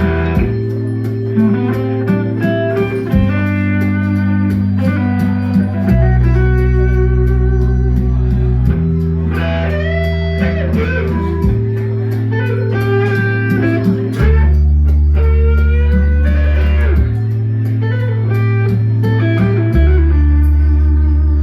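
A band playing: lead guitar with bending notes over a bass line that moves to a new held note every two to three seconds.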